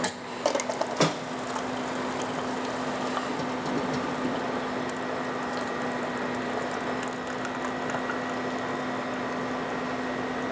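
Coffee machine dispensing into a paper cup: a few sharp clicks in the first second, then a steady mechanical hum of the pump pouring, with a thin high tone above it.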